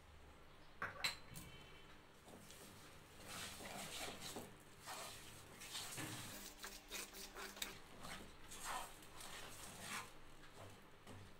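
Wooden spatula stirring thick mango purée and sugar in a pan, making soft, irregular scraping strokes, with one sharp tap about a second in.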